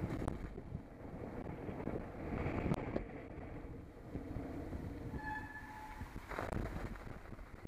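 Radon ZR Race 6.0 mountain bike rolling over wet, slushy pavement: continuous tyre rumble and wind on the microphone, with a few sharp rattling clicks. A brief high tone sounds about five seconds in.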